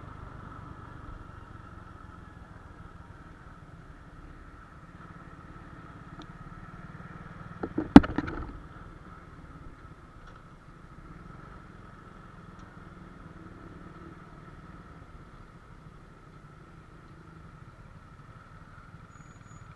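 Honda Wave 125X motorcycle's single-cylinder four-stroke engine running steadily, with a single sharp knock about eight seconds in.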